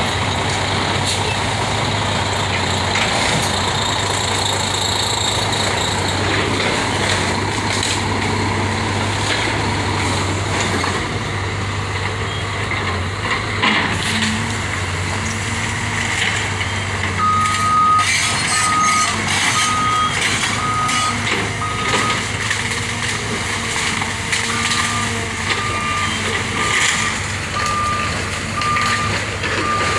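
Diesel engine of a Cat excavator running steadily while it breaks up a wood-frame house, with repeated crashes and cracks of splintering lumber and falling debris. From about halfway, a backup alarm beeps about once a second. Near the end a second run of beeps, slightly lower in pitch, takes over.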